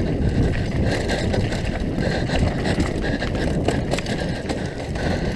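Downhill mountain bike rolling fast over a loose, dusty dirt trail: steady tyre and wind rumble on the helmet-mounted microphone, with scattered clicks and rattles from the bike over bumps.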